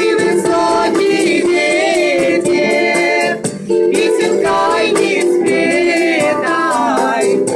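Music: a song with singing voices over a steady sustained accompaniment.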